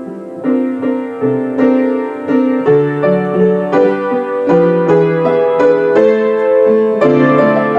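Piano playing slow, hymn-like chords, the notes struck one after another and left to ring.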